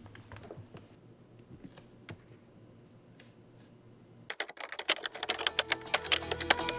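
Laptop keyboard typed on: a few faint clicks, then a quick run of keystrokes about four seconds in. Music comes in underneath near the end.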